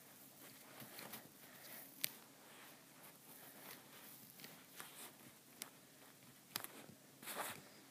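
Faint clicks of calculator buttons being pressed: a few scattered presses, the sharpest about two seconds in, over quiet room noise.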